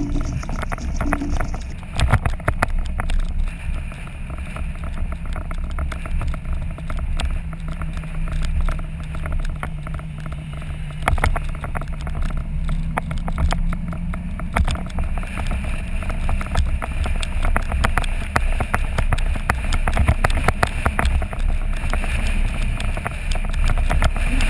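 Touring motorcycle riding at town speed: wind buffeting the camera's microphone in a heavy, uneven rumble over the engine and road noise, with a faint steady engine note through the middle.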